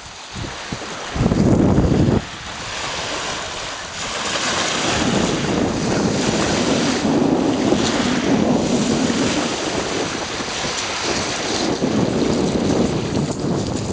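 Small waves washing over a pebble shore, with wind rumbling on the microphone; a louder rumble lasts about a second starting about a second in, then a steady wash of surf and wind.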